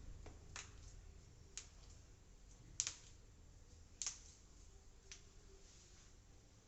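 Spinal joints cracking during chiropractic manipulation: about five sharp, short clicks roughly a second apart, the loudest about three seconds in and another strong one a second later.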